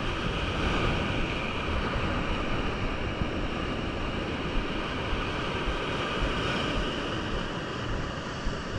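Heavy surf breaking and washing over shoreline rocks, a steady rush of white water, with wind buffeting the microphone.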